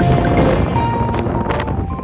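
Background music: a melody of held notes over a steady beat with sharp percussive hits.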